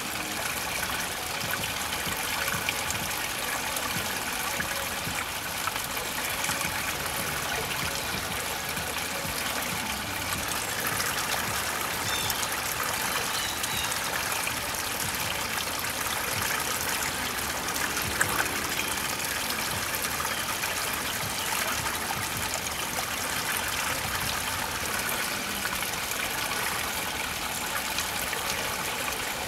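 Water trickling steadily over rocks into a shallow pool, a small stream running without a break.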